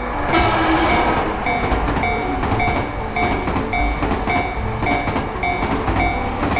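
Shinkansen bullet train sound effect rushing past, its noise surging in about a third of a second in and holding steady. Under it a bell-like tone repeats about twice a second.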